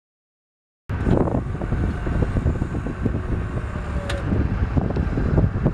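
Silence for about the first second, then wind buffeting the microphone outdoors: a loud, gusting, uneven rumble.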